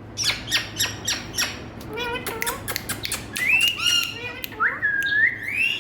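Indian ringneck parrot calling: a quick run of sharp falling squawks in the first second and a half, then screechy calls and a rising whistle near the end.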